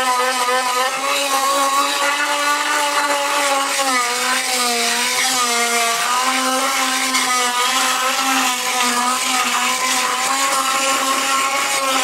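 Chicago Electric oscillating multi-tool with a carbide tile and masonry blade, running steadily and grinding away thick mortar on an old floor tile. It gives a continuous buzz whose pitch wavers slightly as the blade is pressed into the mortar, over a gritty scraping hiss.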